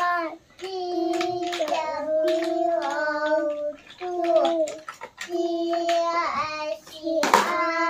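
A child singing in long held notes, phrase after phrase with short breaks between them. A short noisy burst cuts in near the end.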